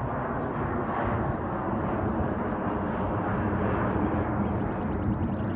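Twin rear-engine regional jet climbing overhead after takeoff, its jet engines giving a steady, deep rushing noise that grows slightly louder about a second in.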